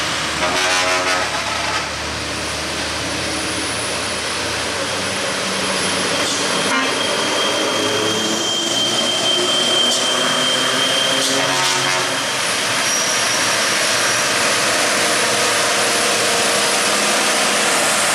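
Heavy Isuzu Giga diesel crane trucks labouring uphill under load, the engine note rising and falling as the lead truck closes in and passes close by. A high steady whine sounds for a few seconds midway.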